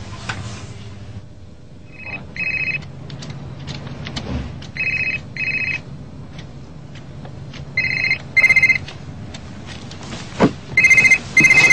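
Brick-style mobile phone ringing with an electronic trill in paired bursts, four double rings a few seconds apart. A single thump sounds just before the last ring.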